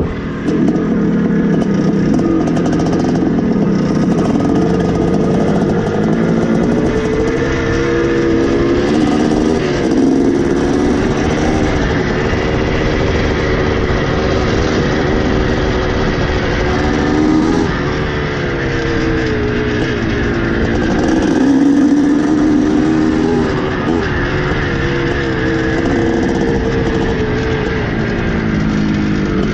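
Two-stroke dirt bike engine being ridden, its revs rising and falling again and again.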